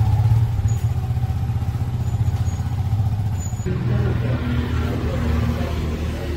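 Yamaha R15M's 155 cc single-cylinder engine running, a steady low rumble whose note shifts about three and a half seconds in.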